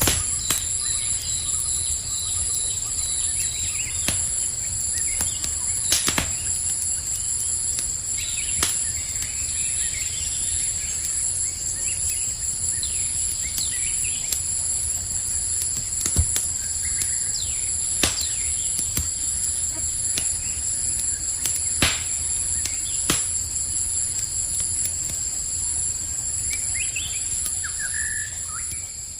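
Campfire crackling, with sharp single pops every few seconds, over a steady high-pitched chorus of night insects and a few short chirps.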